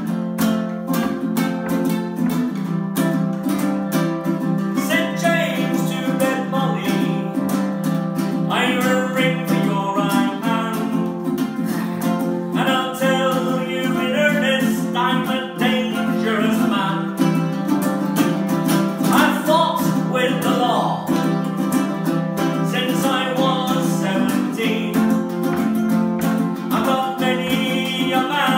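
Two ukuleles, one a baritone ukulele, strummed steadily together, with a man singing in phrases over them.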